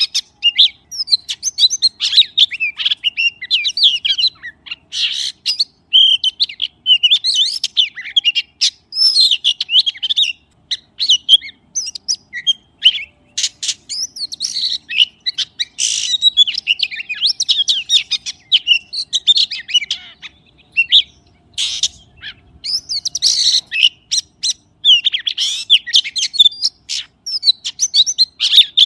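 A magpie singing a fast, varied run of chirps and whistles, phrase after phrase with short pauses between them.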